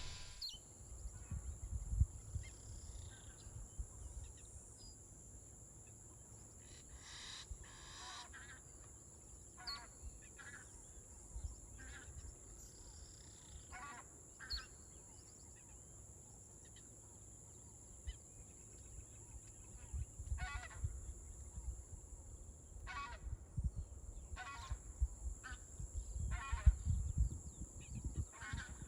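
Geese honking: scattered single calls and short runs of calls, starting about a quarter of the way in and coming more often near the end, over a low rumble.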